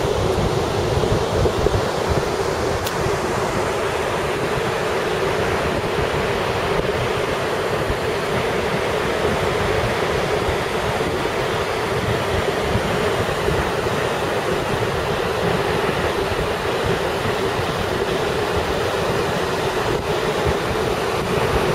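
Steady noise of surf breaking on a sandy beach, mixed with wind buffeting the microphone.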